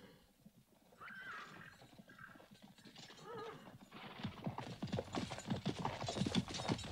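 Sound effect of a mounted army on the march: a horse whinnies faintly about a second in, then a dense clatter of many hoofbeats sets in about four seconds in and grows louder.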